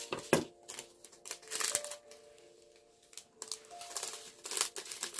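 A small plastic bag of resin diamond-painting drills crinkling, with scattered quick clicks of the drills against a plastic drill tray, over faint background music.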